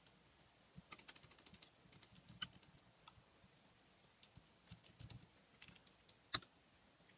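Faint computer keyboard typing: scattered single keystrokes, a short quick run about a second in, and one louder click near the end.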